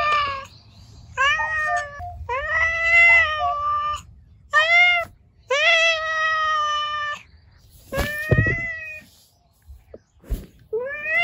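Mother cat meowing over and over, about seven calls, some short and some long and drawn out, each rising at the start and then held. She is pestering for food.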